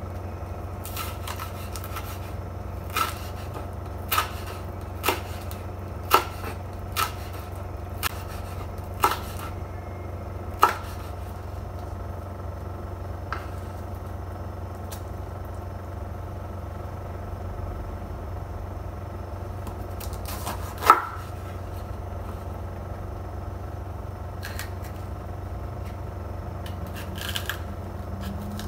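Kitchen knife slicing a bell pepper on a wooden cutting board, the blade knocking on the board about once a second for the first ten seconds, then a few scattered knocks, one louder about 21 seconds in. A steady low hum runs underneath.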